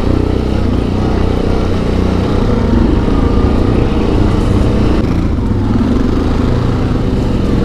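A quad bike's engine running steadily under way, heard close up from the machine being ridden.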